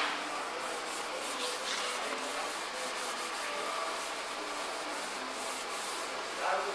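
Steady hand rubbing: a cloth pad wiped back and forth over a car's painted sheet-metal body panels in prep for primer, with a brief louder scrape near the end.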